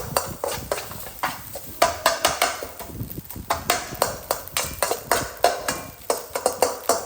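A cooking utensil repeatedly knocking and scraping against a frying pan as food is stirred: irregular sharp clacks, several a second.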